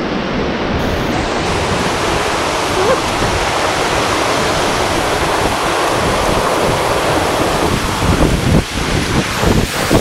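Steady rush of a fast mountain stream tumbling over rocks, mixed with wind buffeting the microphone, which grows gustier near the end.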